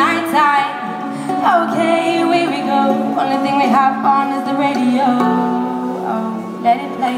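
Live acoustic song: a woman singing with ukulele and keyboard accompaniment, the keyboard holding chords under the voice.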